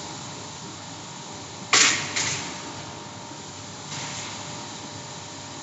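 A sheet of glass on a cutting table snapping along its score line: one sharp, loud crack a little under two seconds in, a smaller crack half a second later and a fainter one about four seconds in, over the steady rush of the table's air blower.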